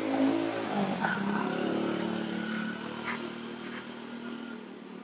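A motor vehicle's engine going by and fading away, its pitch shifting about a second in.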